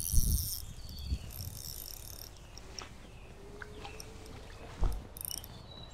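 Soft handling noise from a spinning rod and reel and a landing net as a hooked fish is brought to the net, with a dull thump just before the end. High chirping sounds in the background.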